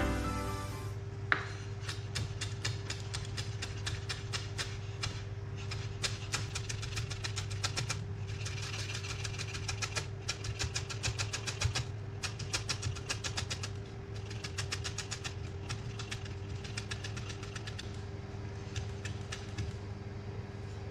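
Chef's knife rapidly chopping curly parsley on a bamboo cutting board: quick, even taps of the blade on the wood, several a second, in runs with short pauses. A steady low hum runs underneath.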